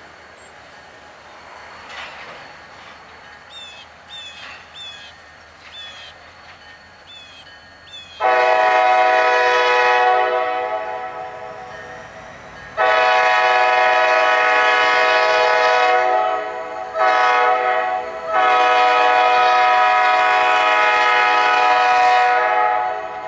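A diesel locomotive's air horn sounds the grade-crossing signal: two long blasts, a short one, then a long one held to the end, as the train approaches a road crossing. The horn is a loud chord of several notes, and the first blast fades off before the second begins. Before the horn there is only a faint rolling rumble.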